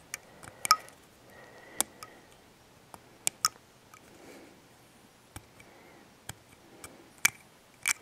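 Hobby knife blade shaving a small plastic battery connector cap, making about a dozen sharp little clicks at irregular intervals as it takes down a ridge on the cap.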